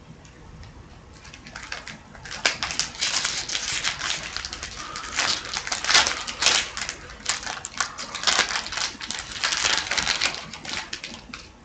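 Foil trading-card pack being handled and torn open, its wrapper crinkling and the cards inside rustling and sliding in a dense, irregular run of crackles.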